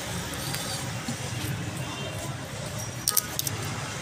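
Steady low hum under a fish being cut with a curved knife on a wooden chopping block, with a quick run of sharp clicks about three seconds in.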